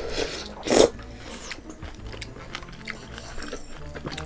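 A person eating miso soup: a short slurp of soup greens just under a second in, then quiet chewing with small scattered clicks.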